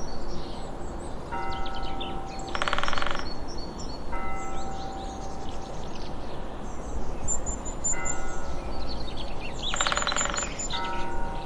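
Birds chirping over a steady background hiss, with two short bursts of rapid chattering calls. Clusters of ringing bell-like tones, several pitches held together, return about every three seconds.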